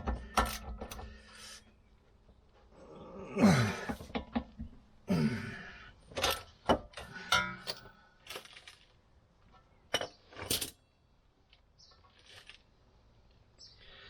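Metal tools and car parts being handled: a series of sharp clinks, clanks and knocks, with two brief sounds about three and five seconds in that drop in pitch.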